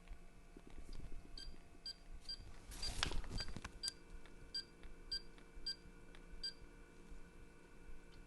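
Humidifier control panel beeping as its settings are stepped through, here the mist level: about ten short, high beeps spaced irregularly over six seconds, with a brief rustle of handling about three seconds in.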